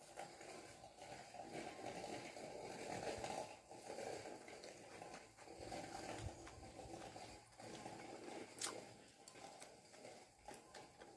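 Soft food-handling noises at a metal tray, then a sharp clink and a few lighter clicks about two-thirds through from a spoon against the glass dipping-sauce bowl.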